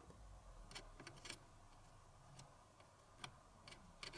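Faint, irregular clicks of metal multimeter probe tips touching connector pins on a circuit board, about half a dozen spread over a few seconds, as the pins are checked for a ground connection.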